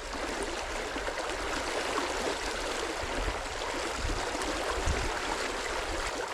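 River water running steadily over stones in a shallow riffle, an even rushing noise, with a couple of soft low bumps about four and five seconds in.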